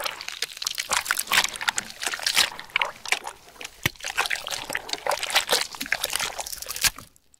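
Horror sound effect of tiny creepy-crawly creatures: a dense, irregular stream of wet clicks and crackles, like squelching or slithering, that keeps going and stops short near the end.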